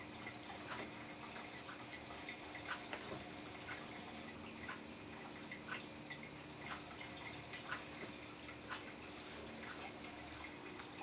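Faint, irregular light clicks and taps from a hand-flicked 3D-printed paddle spinner whirling on its 22 mm bearing around a pen shaft, putting twist into the yarn.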